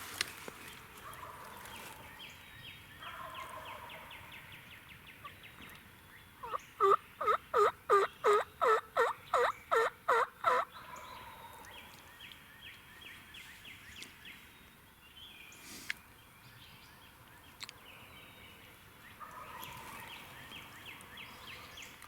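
A run of about a dozen loud turkey yelps, evenly spaced at about three a second and lasting about four seconds, starting about seven seconds in.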